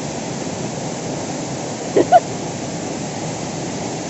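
Waterfall rushing steadily. About two seconds in, two short loud cries from a person's voice cut through it.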